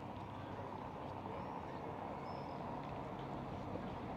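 Steady low outdoor background rumble, with a few faint high bird chirps about two seconds in.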